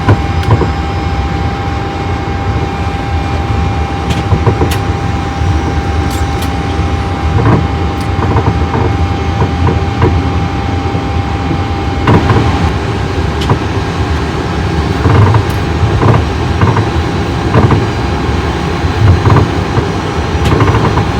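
Airliner cockpit noise with one jet engine, number 2, running after its start: a steady rush with a steady tone that stops about halfway through, and scattered light knocks.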